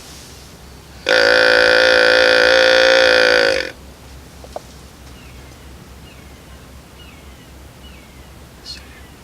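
A single hand-held deer call blown once: a loud, steady, buzzy call about two and a half seconds long that dips in pitch as it ends. Faint bird chirps follow.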